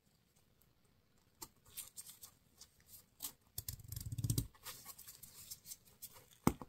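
Faint handling sounds of a 3D-printed plastic sleeve being worked onto a plastic lip balm tube by gloved hands: scattered small clicks and a low rubbing about four seconds in, then one sharper knock near the end.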